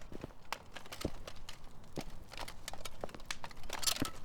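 Dungeon ambience sound effects of irregular sharp taps and clicks over a faint background.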